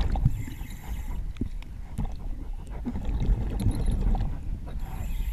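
Muffled underwater noise around a diver: a steady low rumble with scattered clicks and some gurgling.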